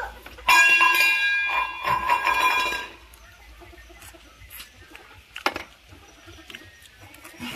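A loud, drawn-out animal call lasting about two and a half seconds, starting half a second in, followed by faint clinks and a single sharp knock near the middle.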